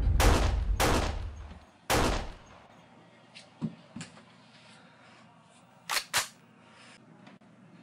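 Gunshot sounds: three single shots in the first two seconds, a couple of faint clicks, then two shots in quick succession about six seconds in.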